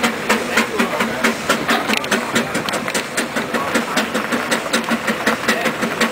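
Steam road locomotive under way, its exhaust chuffing in a steady, even beat of about three beats a second.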